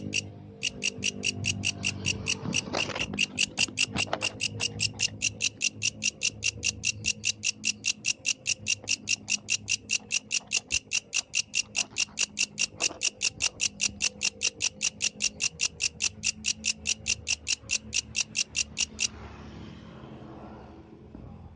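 Yellow grasshopper stridulating: a steady train of short, high-pitched chirps, about four a second, that stops shortly before the end.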